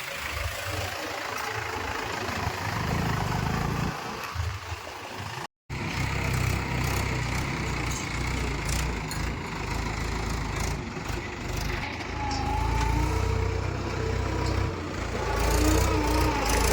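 Diesel engine of heavy farm or construction machinery running with a steady low rumble. The sound cuts out for a moment about five and a half seconds in.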